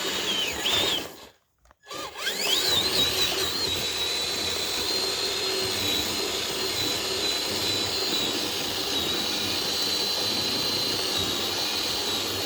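Electric motor and gearbox of an RC rock-crawler truck whining under throttle: a steady high whine that cuts out for about half a second near the start, comes back rising, then holds steady.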